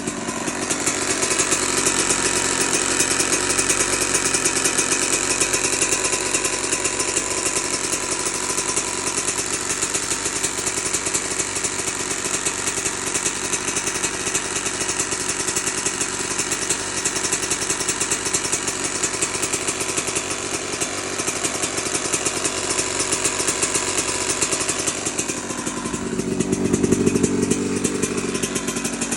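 Two-stroke dirt bike engine running steadily with a rapid knocking rattle, which the owner is unsure is a misfire, rod knock or piston slap. Near the end it swells briefly louder and lower, as if blipped.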